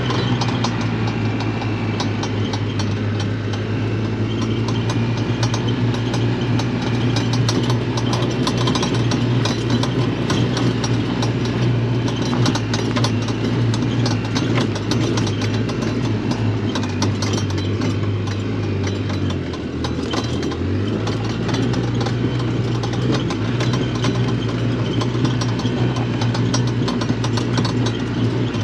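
A vehicle engine running steadily with a constant rattle, its note dipping lower for a couple of seconds about twenty seconds in before picking back up.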